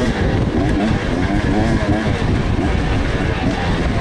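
Off-road motorcycle engine close to a helmet-mounted camera during a woods race, its pitch rising and falling constantly with the throttle, over a rough rumble.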